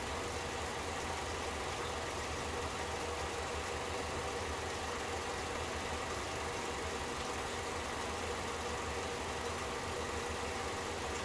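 Elmo FP-C dual 8mm film projector running, its motor humming steadily over an even hiss.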